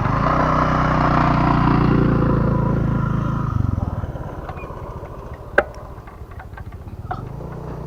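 A motor vehicle's engine running close by, loudest in the first three seconds, then fading away after about four seconds as it passes. A single sharp click comes about five and a half seconds in, with a few faint ticks after.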